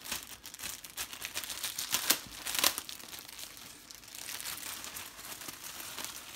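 Tissue wrapping paper crinkling and rustling by hand as an item is unwrapped from its box, with a few sharper crackles about two seconds in.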